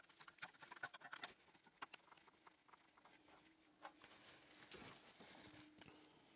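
Near silence, broken by faint scattered metallic clicks and taps from a wrench working the thermostat flange bolts, most of them in the first second and a half.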